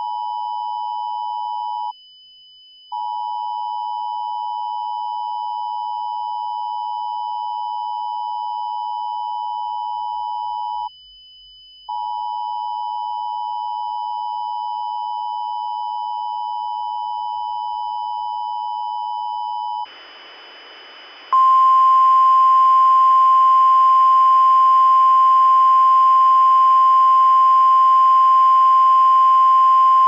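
Emergency Alert System two-tone attention signal (853 and 960 Hz sounded together), steady, breaking off for about a second twice, about two and eleven seconds in. About twenty seconds in, radio static hiss comes up and a single louder, slightly higher steady NOAA Weather Radio 1050 Hz alert tone starts over it.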